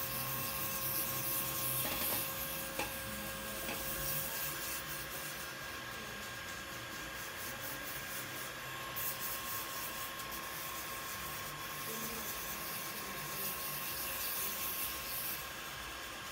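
Electric pedicure drill spinning at about 10,000 rpm, its abrasive sanding cap working dry on the skin of the heel: a steady whine under a rasping hiss that rises and falls as the cap moves over the skin.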